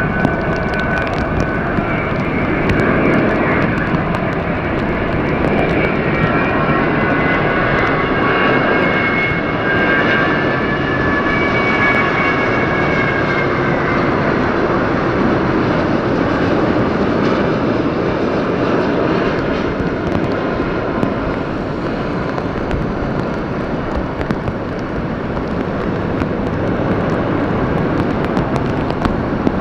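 Airbus A330-900neo jet engines (Rolls-Royce Trent 7000) on landing: several high whining tones that slowly fall in pitch and fade out about halfway through, over a loud, steady rushing jet noise.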